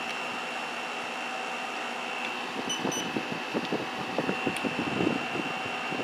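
A 2017 Kool King 5,000 BTU window air conditioner running steadily, a rush of blown air with a faint steady whine. It is cooling well, blowing air at about 43 to 48 degrees.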